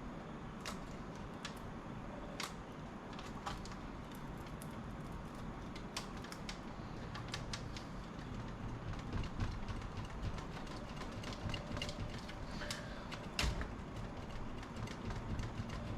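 Scattered small clicks and knocks of a laptop motherboard being wiggled and pried free of its plastic case, coming more often in the second half, with one louder knock near the end, over a steady low hum.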